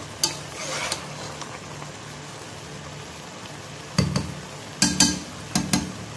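Spatula stirring and scraping through cooked rice in a pan, with a sharp click near the start and several loud knocks and scrapes against the pan between about four and six seconds in, over a faint steady sizzle as the last of the rice's cooking water boils off.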